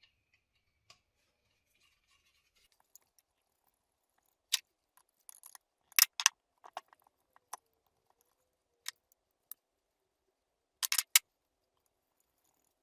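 Sharp metallic clicks and clinks of hand tools and small metal parts being handled, with single clicks spread out and a quick cluster of several near the end.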